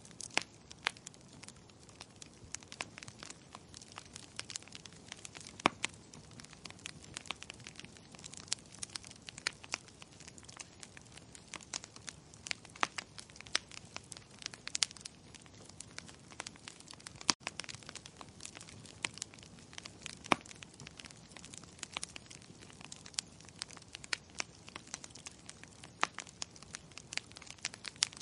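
Wood fire crackling: a steady low hiss of burning with frequent sharp, irregular pops and snaps.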